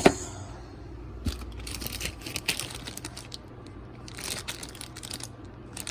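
Packaging crinkling and rustling in irregular bursts as a pack of new work lights is handled and opened, with a sharp click at the very start.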